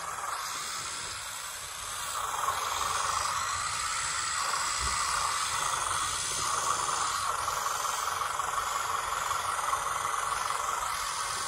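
Radio-controlled scale model tractor running across soil: a steady hissy whirr from its electric drive and gearbox that grows louder about two seconds in, with its pitch dipping briefly a few times.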